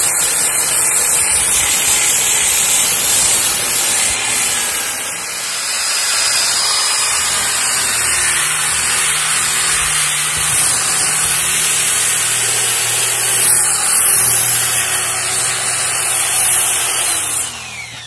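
Handheld electric grinder with a sanding disc running against the sheet-metal refrigerator door, abrading off paint and rust with a steady grinding hiss. Near the end the motor is switched off and spins down with a falling whine.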